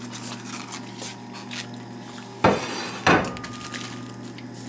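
Dishes clattering: two loud knocks about half a second apart, a little past halfway, with lighter clinks around them.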